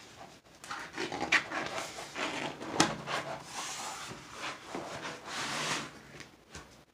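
Rustling and crinkling of a large diamond painting canvas and its plastic protective film as it is flipped over and handled, with a few sharp crackles and a longer swell of rustling near the end.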